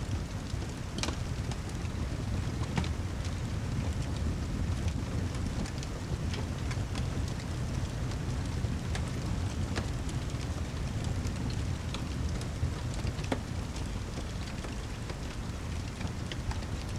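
Steady rain with a low, even rumble underneath, and scattered sharp crackles from a fireplace.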